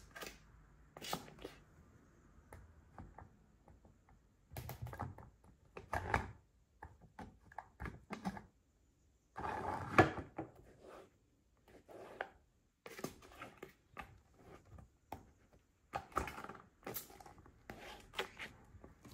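High heels stepping on and squashing spilled white cream and squeezed plastic tubes on a hard floor: irregular knocks and taps, with the loudest knock about halfway through.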